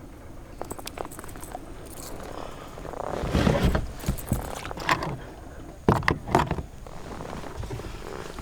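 Scattered knocks, clunks and rustling of fishing gear and a fish being handled aboard a kayak, with a louder, longer noisy stretch about three and a half seconds in and sharper knocks around five and six seconds.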